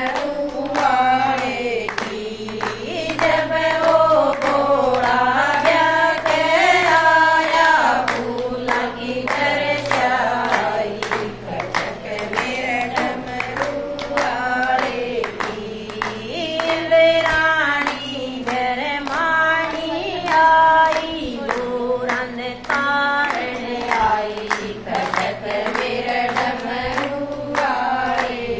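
Group of women singing a Haryanvi Shiva bhajan together in unison, with rhythmic hand-clapping keeping time throughout.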